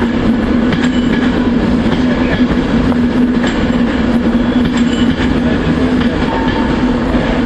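Diesel train's engine running at a standstill, a steady drone with a constant hum.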